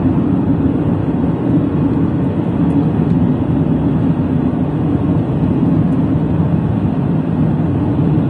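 Steady road and engine noise heard inside a moving car's cabin, a low, even rumble that holds constant throughout.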